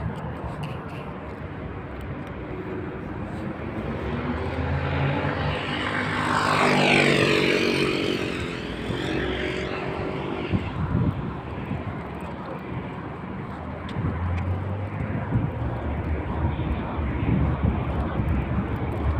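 An aircraft passing overhead. It builds to its loudest about seven seconds in, then fades with a falling pitch as it goes by, over a steady low rumble.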